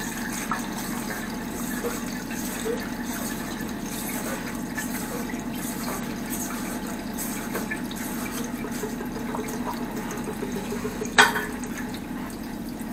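Water running and splashing steadily from an old leaking angle valve on a tiled wall, the line still flowing as it drains down. One sharp click about eleven seconds in.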